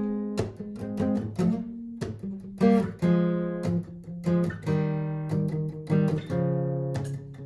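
Martin GPCPA4 acoustic-electric guitar playing chords through a looper pedal, struck again every half second to a second and left to ring between strokes.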